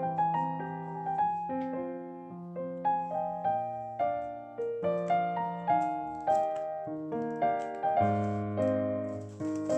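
Background solo piano music: a slow melody of single struck notes over held bass notes.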